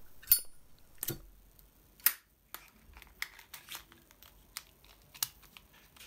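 A Zippo lighter and its leather belt case being handled: a sharp metallic click with a short high ring just after the start, another sharp click about two seconds in, then small clicks and leather rubbing as the lighter goes back into the case and the snap lid is pressed shut.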